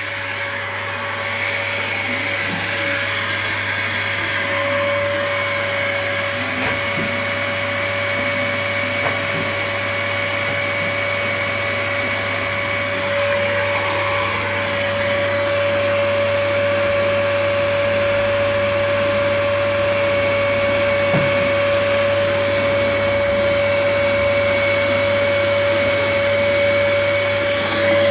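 Vacuum cleaner running steadily: a constant motor hum and airflow noise with a steady whine on top.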